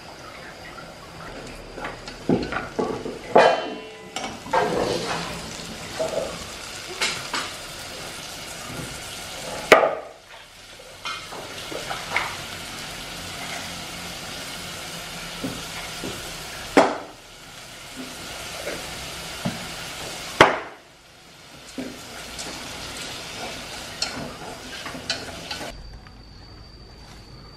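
Dragonfly larvae sizzling as they fry in an aluminium pot, with a utensil stirring and knocking against the pot now and then. Near the end the sizzling gives way to a quieter scene with a thin steady high tone.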